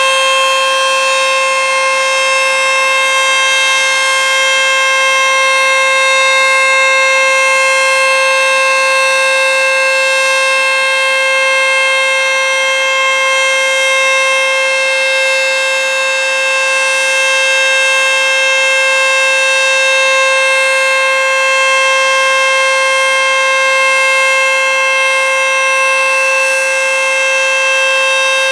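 ACA Screamer S-2 outdoor warning siren sounding a loud, steady tone that holds one pitch without rising or falling, during a scheduled siren test.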